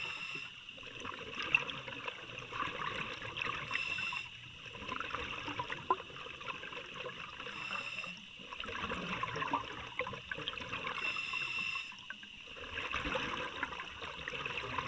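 Underwater bubbling and gurgling from a diver's exhaled breath, in surges about every four seconds with short lulls between them.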